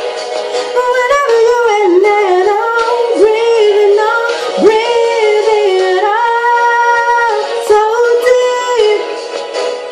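A woman singing an R&B ballad, with sliding vocal runs and a long held note about six seconds in.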